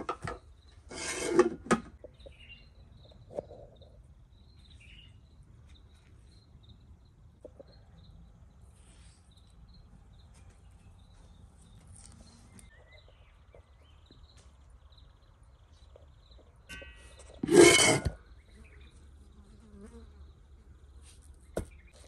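Hand food-preparation noises: a cleaver scraping and chopping on a wooden board, then quieter knife and handling sounds, with a faint insect buzz behind. Two short loud rasping bursts stand out, about a second in and near the end.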